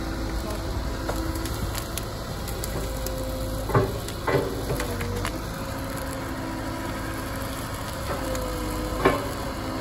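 Burning pine brush crackling and hissing, with three sharp cracks, two about four seconds in and one near the end. A Liebherr rail-road excavator's engine and hydraulics run underneath, their whine shifting in pitch.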